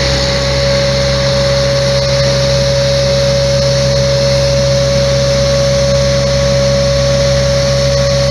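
Truck-mounted Martignani air-blast sprayer running and blowing a larvicide mist: a steady high whine from the blower over the low drone of the truck's engine.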